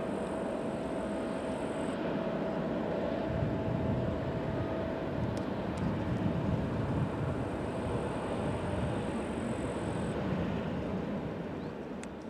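Airbus A319's CFM56-5A jet engines running at taxi idle: a steady rumble with a thin high-pitched whine that drops out and returns. The sound fades away near the end.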